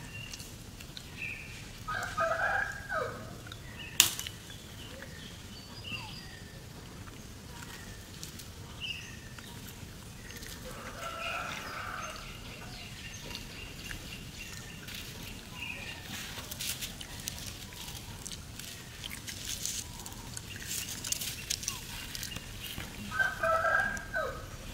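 Short animal calls, three brief bouts, about two seconds in, in the middle, and near the end, over intermittent rustling in dry leaves, with one sharp click about four seconds in.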